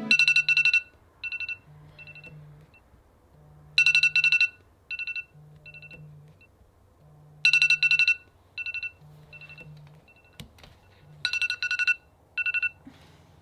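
Smartphone alarm ringing: a repeating figure of bright electronic notes in short groups, starting over about every four seconds, with a low buzz pulsing on and off beneath it.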